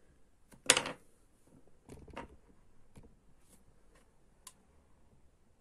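Small handling noises of tools on a workbench: one short, sharp scrape or clatter just under a second in, then a few light clicks around two seconds in and faint ticks after.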